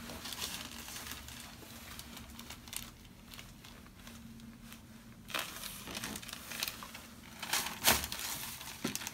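Paper crinkling and rustling on a chiropractic table as the patient settles face up and is positioned. A sharp click stands out about eight seconds in.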